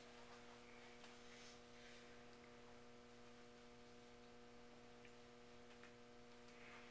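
Near silence: room tone with a faint, steady electrical mains hum.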